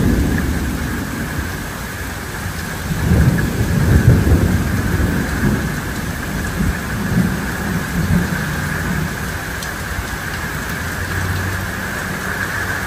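Steady downpour of rain hissing on the ground, with a low rolling rumble of thunder that swells about three seconds in and dies away over the next several seconds.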